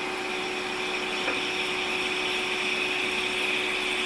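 Hot air rework station blowing steadily: an even rush of air with a constant hum.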